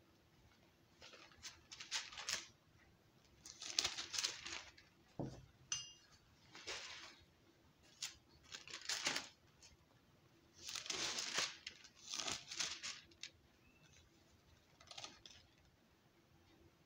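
Bible pages being turned and rustling while the passage is looked up: a series of about eight short papery rustles, each under a second, with a soft knock about five seconds in.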